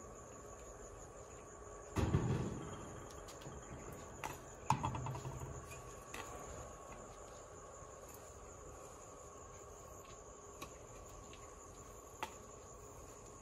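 Crickets singing in a steady high trill. About two seconds in and again near five seconds comes a louder thud or clatter, with a few light clicks between.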